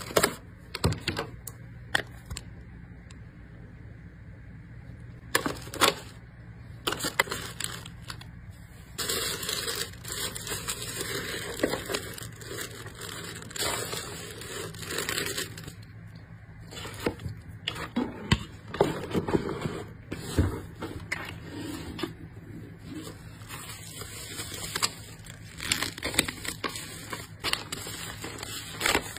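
Clear plastic nail boxes clicking and tapping as they are handled and set down, then a long stretch of tissue paper and plastic mailer packaging rustling and crinkling, starting about nine seconds in.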